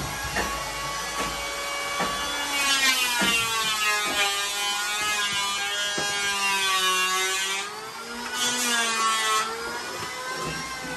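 A power tool's motor running continuously, its pitch dipping and rising as the load on it changes, with occasional sharp knocks.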